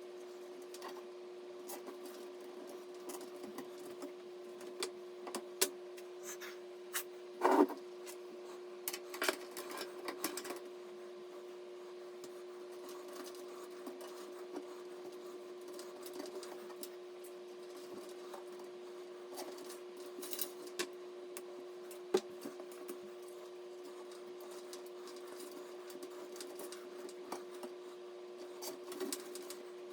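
Scattered clicks and light knocks of small PC parts and tools being handled during assembly, busiest in the first third, over a steady hum.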